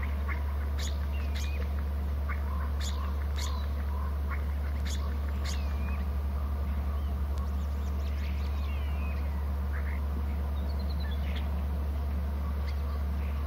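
Birds calling: scattered short, sharp calls and chirps, a few with quick gliding pitch, over a loud steady low hum.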